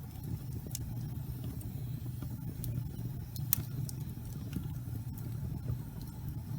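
Wood fire burning in a fireplace: a steady low rumble of flames with scattered sharp crackles and pops, the loudest about three and a half seconds in.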